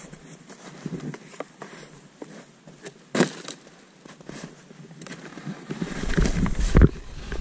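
Snowboard sliding and scraping over firm, tracked snow, with a sharp knock about three seconds in. From about six seconds in, wind rumbles on the microphone and the noise grows louder.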